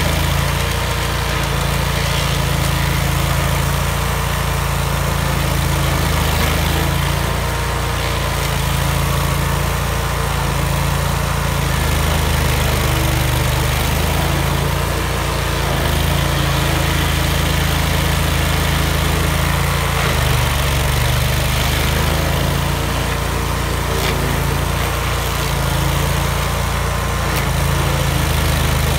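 Vermeer walk-behind stump grinder running steadily as its cutter wheel grinds into a stump, the engine note wavering a little as the load comes and goes.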